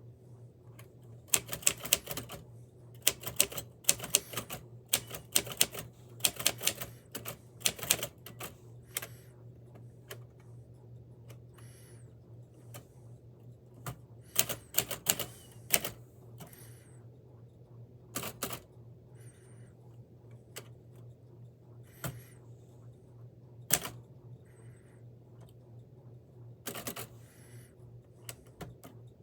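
Typewriter keys striking in quick bursts of typing separated by pauses, with a steady low hum underneath.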